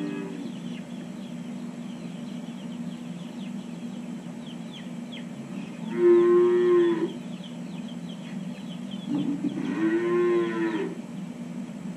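A calf bawling twice, each call about a second long, over a steady low hum.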